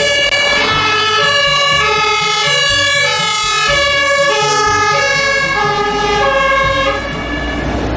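Two-tone siren of a German MAN fire engine alternating steadily between a high and a low note, over the low rumble of the truck. It eases slightly near the end.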